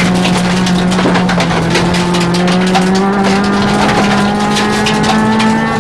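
Rally car engine heard from inside the cabin, pulling hard with its pitch climbing slowly as the car accelerates, over constant road noise and frequent clicks and rattles.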